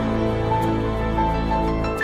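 Slow instrumental background music with long held notes.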